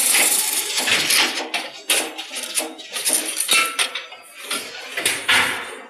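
Welding electrodes clattering and clinking against steel as an automatic electrode counting and packing machine runs: an irregular metallic rattle with sharp knocks, easing off briefly about four seconds in, then surging again.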